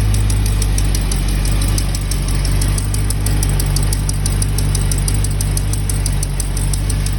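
Hemi engine idling with a fast, steady ticking over the engine note: the so-called Hemi tick.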